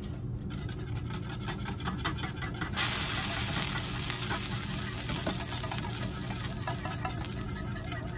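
Wire whisk stirring hot milk and butter in a metal saucepan, its wires clicking and scraping against the pan in quick strokes. About three seconds in, a loud hiss starts suddenly and slowly fades.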